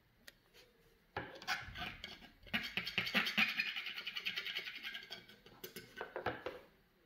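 A palette knife scraping in quick, rapid strokes, working acrylic paint against a plastic palette. It starts about a second in, is busiest in the middle and stops shortly before the end.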